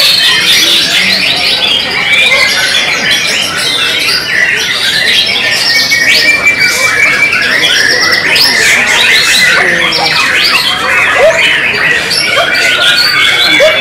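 White-rumped shama singing continuously, overlapped by other caged songbirds singing at the same time. The sound is a dense tangle of rapid whistles, trills and chatter, with a few longer held whistles.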